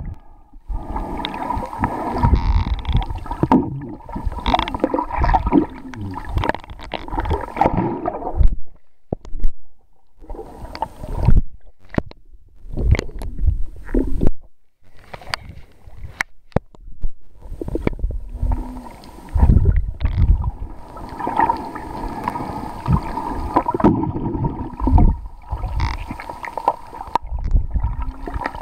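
Water sloshing and gurgling in uneven bursts with deep rumbles, broken by a few short lulls.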